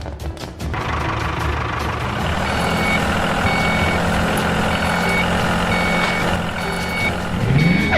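Construction vehicle's reversing alarm beeping about once a second over a running engine, with a rising whine near the end.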